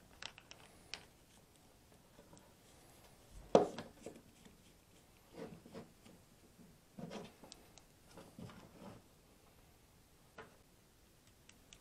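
Handling noises from a Dremel rotary tool and its flex shaft attachment as they are put back together: scattered small clicks, rubbing and light knocks of plastic and metal parts, with one sharper knock about three and a half seconds in.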